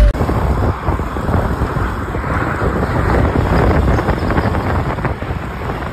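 GTR125 scooter in motion, with wind buffeting the microphone over road and engine noise.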